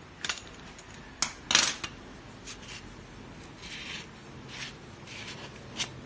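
Stainless-steel hand coffee grinder being handled and taken apart: sharp metallic clicks and taps, the loudest about a second and a half in, and a few short scraping rubs of metal on metal later on.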